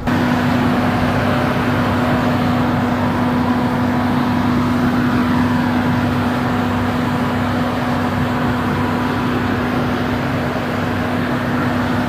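Diesel engine of a Mercedes-Benz Actros-based Schwing truck-mounted concrete pump running steadily with a constant drone, working the pump during a concrete pour.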